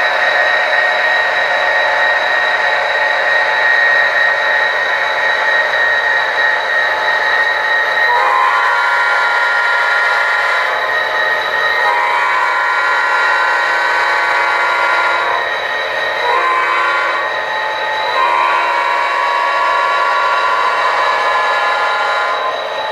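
HO scale model diesel locomotive's onboard sound playing a multi-chime horn in the grade-crossing pattern, two long blasts, one short and one long, starting about a third of the way in. A steady whine and running sound of the model train continue under it.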